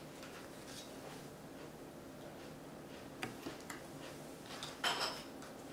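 Faint clicks and taps of picture cards being handled on a wooden tabletop, with a brief scraping rustle about five seconds in as a card is moved.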